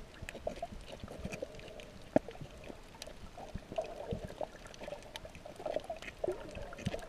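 Water heard underwater through a GoPro's waterproof housing: a muffled, wavering gurgle with many scattered sharp clicks and crackles, one louder click about two seconds in.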